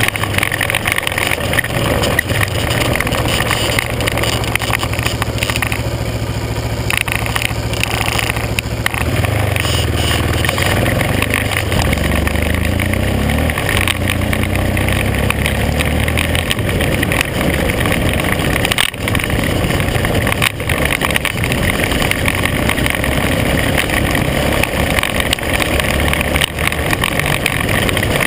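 Off-road vehicle engine running while driving a dirt track, its pitch rising and falling with the throttle about midway through, under steady wind and road noise on the camera's microphone.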